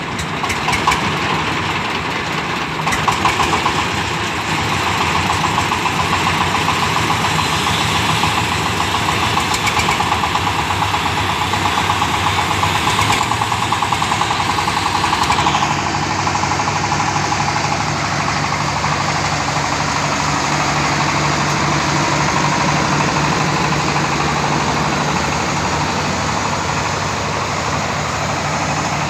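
Engine-driven corn sheller running: a steady engine hum under a dense rattling noise. About halfway through the rattle drops off and the engine runs on more evenly.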